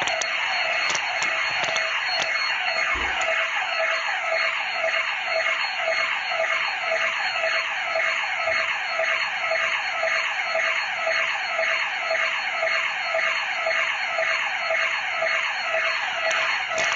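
Electronic burglar-alarm siren of the house's alarm system sounding continuously: a loud, rapidly repeating falling tone.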